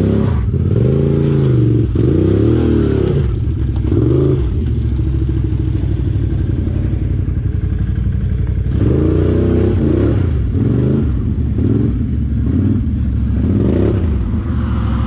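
ATV engine revving up and falling back over and over as the quad works through mud and rocks, with a few sharp knocks and rattles of the machine near the start.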